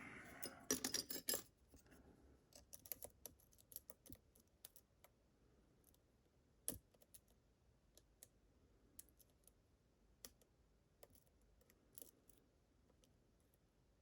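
Lock pick and tension tool clicking and ticking against the pins of a Medeco-style challenge lock as the pins are lifted and rotated. There is a quick run of clicks about a second in, then scattered light ticks, with one sharper tick around the middle.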